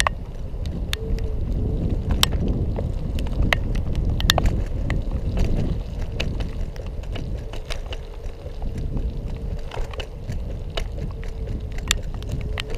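Electric scooter rolling over paving: a steady low rumble and wind on the microphone, with many sharp clicks and rattles from bumps. A faint steady whine runs underneath.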